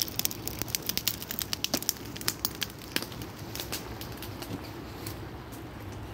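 Wood fire burning in a metal drum, crackling and popping rapidly, the pops thinning out after about three seconds to a steady low background rumble.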